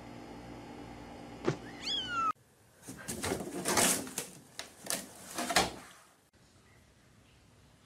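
A kitten gives one short meow that falls in pitch, just after a click. Then the hinged lid of a storage hamper knocks and bangs several times as a cat moves about in it, and the lid ends up shut.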